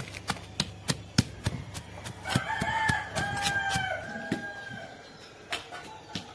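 Stone pestle pounding spices in a stone mortar, sharp knocks about three a second. A rooster crows once from about two seconds in, a long call of nearly three seconds that is the loudest sound.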